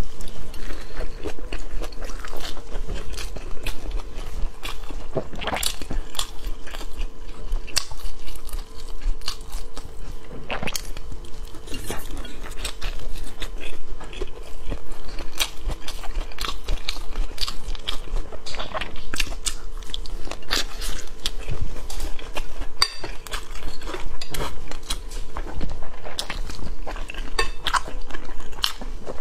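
Close-miked eating: biting and chewing a rolled flatbread wrap, with many short wet crunches and mouth clicks. A spoon clinks against a bowl near the end, over a steady faint hum.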